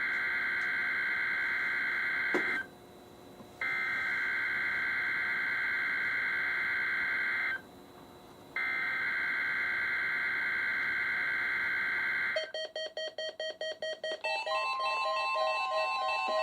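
NOAA Weather Radio SAME digital header sent three times: three screechy data bursts of about four seconds each, a second apart, heard through several weather radio receivers. The bursts mark the start of the Required Weekly Test. About twelve seconds in, the radios' alert alarms set off: first a rapid beeping, then a mix of steady and pulsing beep tones overlapping.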